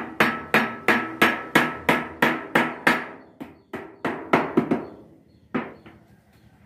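Hammer striking the seam of a curved sheet-metal dome section, even ringing metallic blows about three a second that slow, turn irregular after about three seconds and stop with a last pair near the end.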